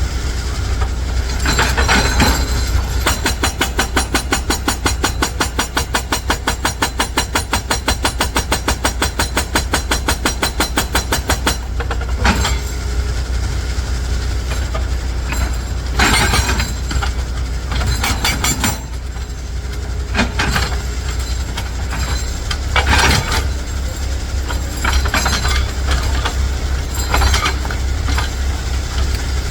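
Heavy dump truck's diesel engine running with a deep, constant rumble. For about eight seconds a fast, even clatter runs over it, and after that come several short bursts of noise.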